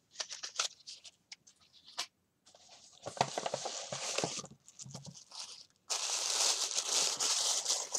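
Scattered light clicks and rustles of packages and a paper gift bag being handled. About six seconds in, the louder crinkling of tissue paper starts as a wrapped gift is pulled out and unwrapped.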